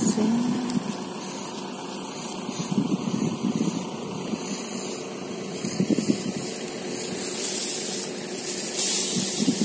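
Wind blowing across the microphone outdoors, a steady rushing hiss without any tone, swelling slightly near the end.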